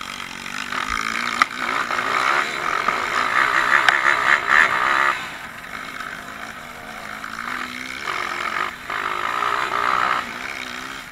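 Dirt bike engine heard from a camera mounted on the bike, revving hard and easing off through the turns: loud with pitch climbing over the first few seconds, dropping back about halfway, then revving up again near the end.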